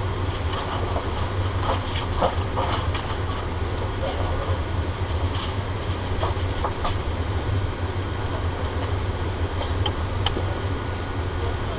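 Steady low hum of an Airbus A350-900 passenger cabin parked at the gate, with scattered small clicks and knocks over it.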